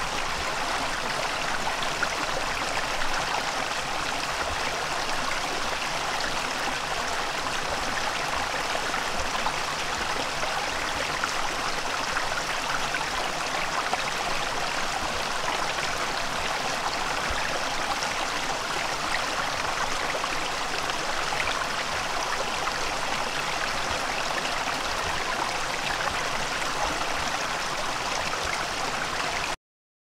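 Small shallow stream flowing over rocks: a steady rush and babble of running water that cuts off abruptly at the very end.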